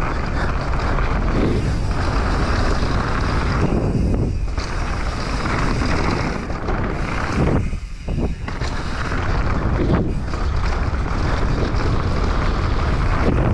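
Wind buffeting a helmet-mounted action-camera microphone, mixed with the rumble of mountain bike tyres on dry dirt at high speed. The noise drops away briefly twice, about four and eight seconds in.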